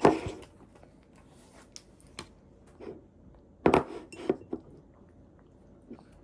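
Spoon clinking and knocking against a baby-food bowl while scooping up mouthfuls: a handful of short, separate clinks, the loudest right at the start and a cluster of three a little over halfway through.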